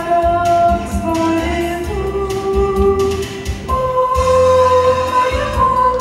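Teenage girls singing a slow song in Russian into handheld microphones, long held notes over instrumental accompaniment with sustained bass notes.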